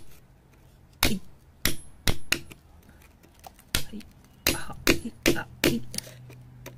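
Metal chisel tip striking and scraping packed, gravelly mud and small stones: a series of sharp, irregular knocks that come closer together in the second half.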